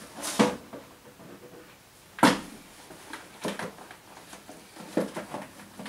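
Handling noises as a plastic lunchbox is fetched and packed into a school backpack: a few separate rustles and knocks, the sharpest knock about two seconds in.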